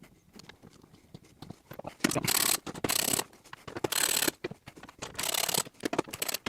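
Ratchet wrench clicking in short quick bursts as it backs out the 10 mm bolts and nuts holding a car window regulator in the door. A few faint clicks come first, then about four half-second runs of fast clicks from about two seconds in.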